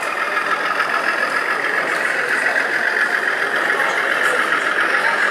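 Model diesel locomotive running past close by with its coaches: a steady engine-like hum that builds slightly a couple of seconds in.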